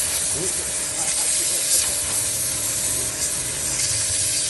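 Electric pressure washer firing a high-pressure jet onto a concrete floor: a steady hiss of water with the machine's steady hum underneath, the jet slicing a cucumber into pieces.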